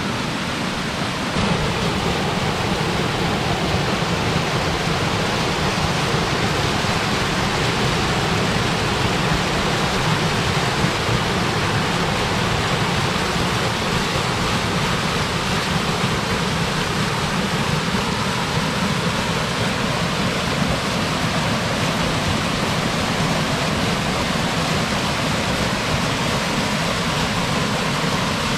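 Small cascading waterfall tumbling over rock ledges into a river pool, heard close up from a kayak at its foot: a loud, steady rush of falling water that steps up in loudness about a second and a half in.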